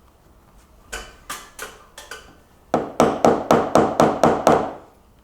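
Hammer knocking on wood: a few light taps, then a quick run of about eight harder blows, roughly three a second.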